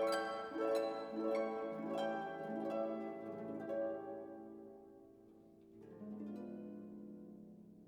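Background music: a gentle melody of plucked notes that thins out after about four seconds, with softer notes returning near the end.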